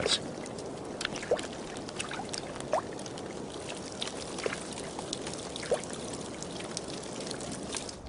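Water trickling and lapping at the edge of thawing ice, with scattered small wet clicks and plops from a grizzly bear feeding on a fish in the water.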